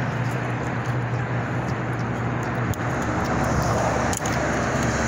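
Steady road traffic noise with a low engine hum running through it, and a couple of faint clicks about two and a half and four seconds in.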